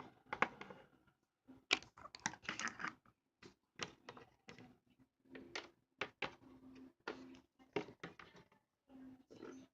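Small plastic toy figures clicking and tapping as they are handled and set down on a hard surface, in an irregular run of light clicks with a denser cluster about two seconds in.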